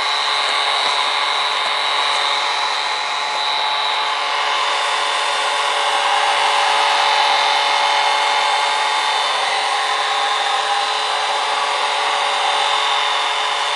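Panasonic Turbodry hair dryer running steadily, a rush of air with a constant motor whine, blowing hot air close to a darbuka's synthetic drumhead to soften it so the head can be tightened evenly.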